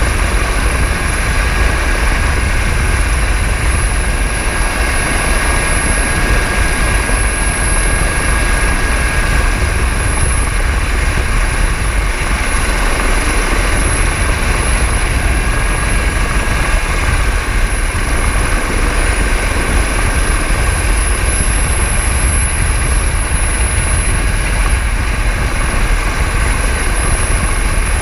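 Rescue helicopter hovering, heard at its open cabin door: a steady, loud rumble of rotor and engines with a constant high turbine whine over it.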